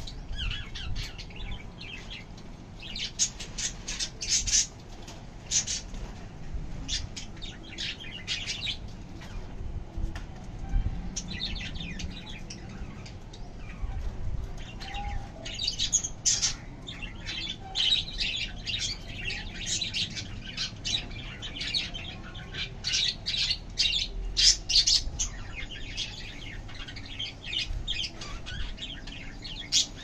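Birds chirping and squawking in short, scratchy, high calls that come in clusters again and again.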